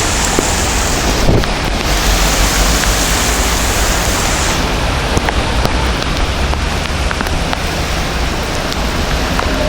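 Steady rain falling and pattering on surfaces, with a low rumble underneath and scattered small drop ticks.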